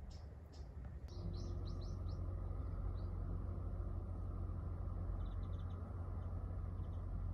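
Small birds chirping in short, high, quick calls, a cluster about a second in and a few more later, over a steady low rumble.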